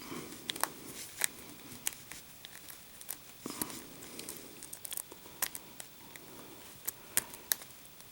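Irregular small sharp clicks from a lock pick and tension wrench working the pins of a No.1 Master Lock padlock, with soft rustling of gloved hands on the lock.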